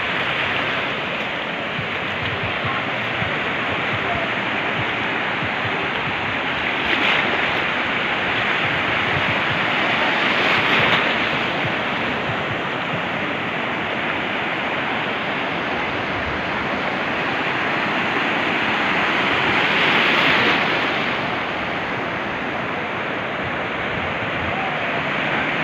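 Sea surf washing onto a beach: a steady rush of breaking waves that swells louder a few times as bigger waves come in.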